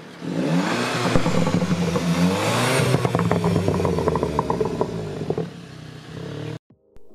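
VW Golf 7.5 GTI Performance with an FSW aftermarket exhaust accelerating past, its turbocharged 2.0-litre four-cylinder rising in pitch, then a rapid string of exhaust crackles as it pulls away. The sound cuts off suddenly near the end.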